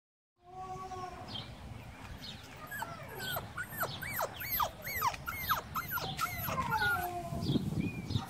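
Siberian husky puppy whining: one held whine about half a second in, then a quick run of short whimpers that rise and fall in pitch, ending in a longer falling whine.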